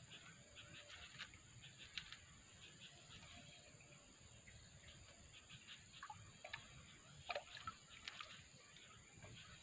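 Faint outdoor ambience: a steady high insect drone with scattered small chirps and clicks. A cluster of louder ones comes about seven to eight seconds in.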